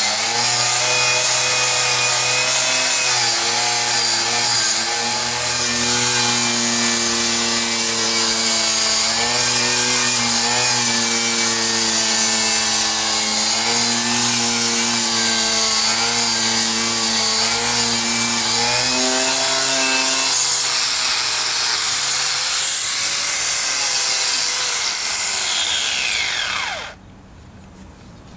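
Corded angle grinder with a wire cup brush scouring rust and old paint off a metal caboose roof, its motor whine dipping and recovering as the brush is pressed into the surface. Near the end it is switched off and winds down, falling in pitch until it stops.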